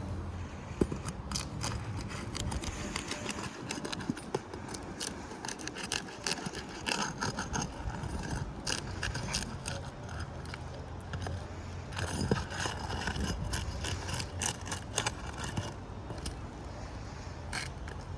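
Scraping, rattling and irregular sharp clicks of hand work on asphalt roof shingles, as shingles are lifted and pried at to get to their nails, over a steady low rumble.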